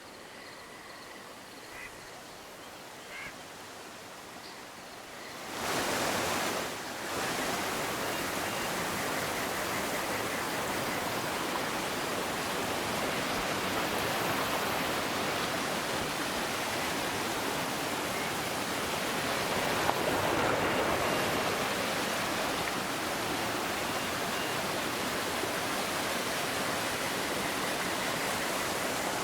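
River water rushing steadily. It starts quieter, with a couple of faint high chirps, and becomes much louder and fuller about six seconds in, then holds steady.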